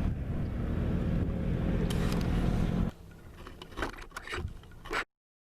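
A boat motor running with a steady low hum, cutting off abruptly about three seconds in, followed by a few light knocks and scrapes before the sound drops out completely.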